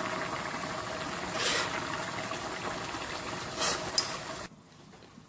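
Pot of fish and cabbage curry boiling on the hob with a steady bubbling, while a metal spoon stirs it and knocks against the metal pot a few times. The sound drops away suddenly about four and a half seconds in.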